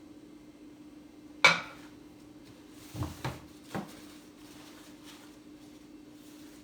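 Pottery mugs and china clinking and knocking together as they are handled: one sharp, ringing clink about a second and a half in, then three duller knocks a little later.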